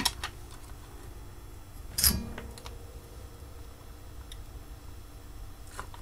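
Handling noises of a small circuit board on a wooden workbench: one sharp knock about two seconds in and a few faint ticks as the board is turned over and put down for soldering.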